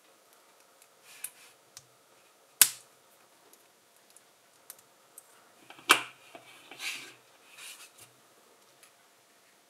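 LEGO plastic bricks being handled and snapped together: two sharp clicks, one under three seconds in and a louder one about six seconds in, with lighter clicks and soft rattling of pieces between.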